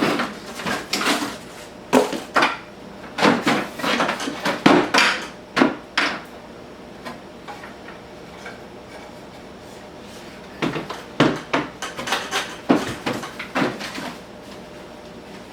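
Handling noise from unpacking a track saw from its plastic shipping tray: clattering knocks and scraping of hard plastic, in two bursts with a quieter pause of a few seconds between.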